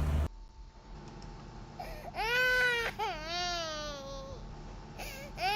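Sound effect of an infant crying: a couple of high wailing cries about two seconds in, the second trailing off in a falling wail, then another cry starting near the end. A previous vehicle sound effect cuts off at the very start.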